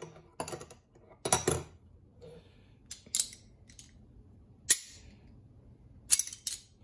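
Steel hose pinch pliers and a wrench clicking and clacking against each other in the hand, a scattered series of sharp metallic clicks as the pliers pivot and slip on the wrench.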